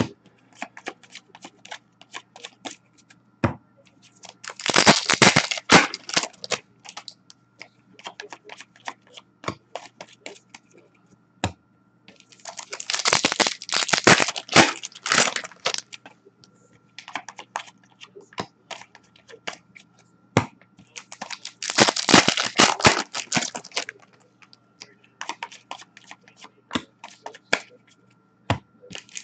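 Trading-card packs being torn open, with three bursts of wrapper tearing and crinkling, each lasting two to three seconds. Between them come scattered sharp clicks of cards being flicked through by hand, over a faint steady hum.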